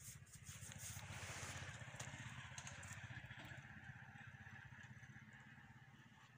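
A faint engine running steadily with a fast, even pulse, swelling about a second in and then slowly fading away. Some clicks and scraping are heard in the first few seconds.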